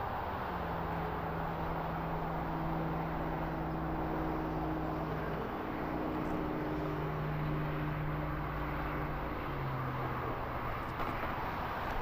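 A distant engine drones steadily over a wash of background noise, its low hum stepping down in pitch twice.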